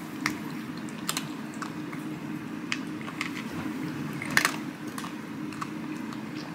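Two cats eating from bowls: irregular small clicks and crunches of chewing and of teeth and tongues working the food against the bowls, the loudest about four and a half seconds in, over a steady low hum.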